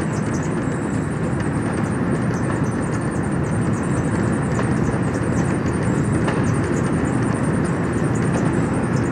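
Potatoes tumbling and rattling along belt conveyors and over a mesh screen, over the steady din of the conveyor machinery, with a faint high whine on top.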